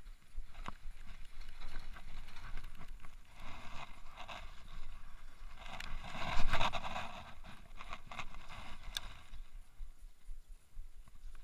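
Rustling and scraping handling noise from casting a baitcasting rod and reel, loudest about six seconds in as the rod is swung, with a few sharp clicks.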